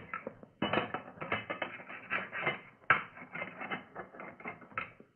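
Radio-drama sound effect of an altitude chamber's metal hatch being sealed: a sharp knock, then a run of irregular clanks and rattles for about four seconds.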